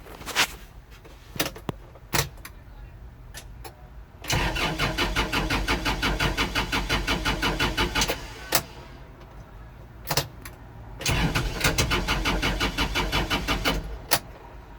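Kubota L4330 HSTC tractor's diesel engine being cranked by the starter twice, each time for about three to four seconds of even, rhythmic turning over without catching, with sharp clicks in between. It is a no-start right after an unexplained stall, part of the tractor's intermittent stall-and-no-start fault.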